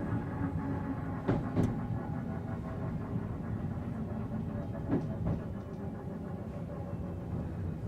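Running sound inside a JR 719 series thyristor phase-controlled electric car: a steady hum of several tones from the traction equipment, with two pairs of clicks as the wheels cross rail joints, easing off slightly toward the end. This car is known for an abnormal jet-like noise.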